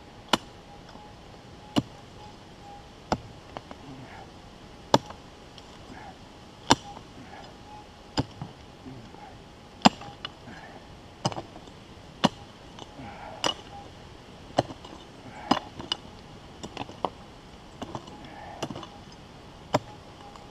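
Prospecting pick striking the ground again and again, about one sharp blow every second or so, digging down to a deep metal-detector target.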